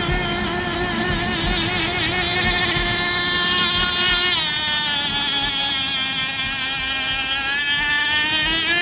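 SuperVee 27 RC speedboat's small glow-plug engine running at high revs, a high whine that wavers in pitch. About halfway through the pitch drops sharply, then rises again near the end.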